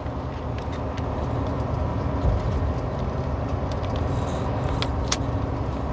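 Semi truck's diesel engine and road noise heard inside the cab while driving, a steady low drone, with a few short clicks near the end.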